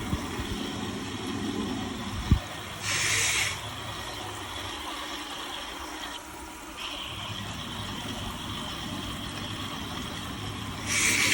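Shower water running steadily. There is a single sharp knock about two seconds in, and two short hissy bursts, one about three seconds in and one near the end.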